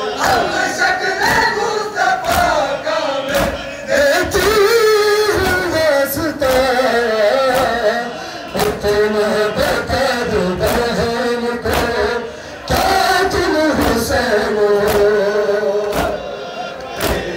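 A group of men chanting a noha, a Shia mourning lament, together. The chant is punctuated by slaps of hands striking bare chests in matam, about once a second, over a crowd murmur.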